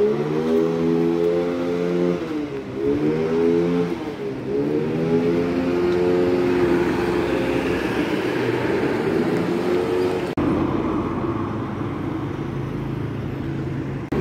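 Truck diesel engine revving, its pitch climbing and dropping a few times before holding steady; about ten seconds in it changes abruptly to a rougher, steady engine run.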